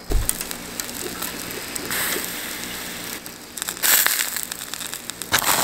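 Charcoal fire crackling and hissing under chicken-and-green-onion skewers on a grill rack, the coals catching and flaring up. A short low thump at the start, then a steady crackle that grows louder in spells about two seconds in, around four seconds, and near the end.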